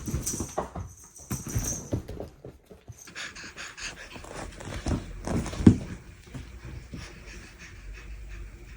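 Neva Masquerade Siberian cat panting in quick, uneven breaths, mixed with soft thumps and knocks as it moves about, one sharper knock a little over halfway through. The cat tires and gets out of breath more easily than most.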